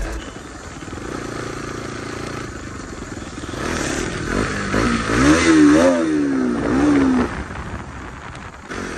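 Motorcycle engine accelerating under the rider, its pitch climbing and dropping several times in the middle as it is revved up, then falling away, over rushing wind noise.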